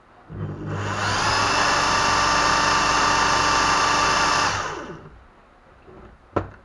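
Handheld electric drill spinning a car alternator converted to a permanent-magnet rotor, driving a bank of twelve 220 V bulbs (850 W) that light up. The drill comes up to speed within about a second, runs steadily for about three and a half seconds, then winds down. A short sharp click near the end.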